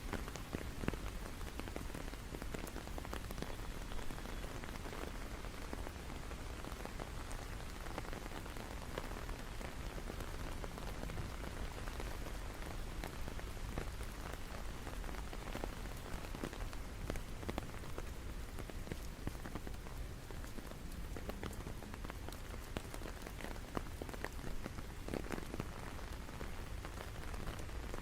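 Steady rain falling: a continuous even hiss, with many individual drops landing as small sharp ticks.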